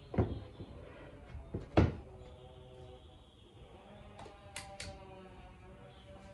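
Wooden wall-art piece knocked against a plywood wall as it is hung: two thumps about a second and a half apart. About four and a half seconds in come a few sharp clicks as its push-light switch is pressed to light it.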